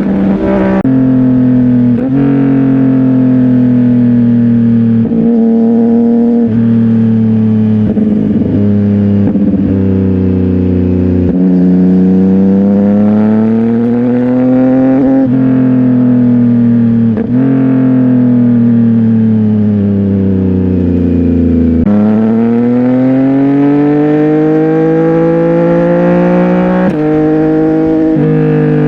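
CFMOTO 675NK's inline-three engine through a titanium full-system exhaust, ridden under way. The note rises and falls with the revs, with about ten sharp breaks in pitch at the gear changes, and climbs steadily over the last several seconds.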